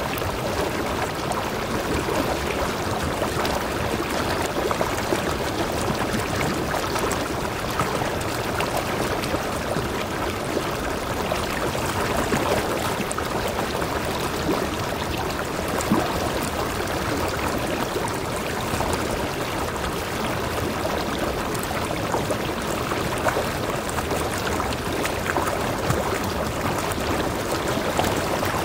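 Mountain stream pouring in a small cascade between boulders into a rock pool: a steady rush and splash of water.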